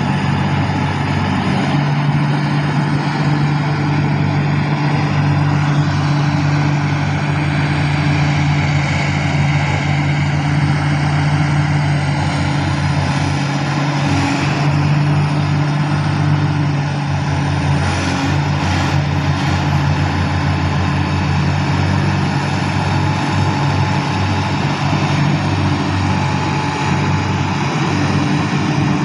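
Heavy diesel machinery running steadily: a constant, loud low engine hum that holds an even pitch throughout.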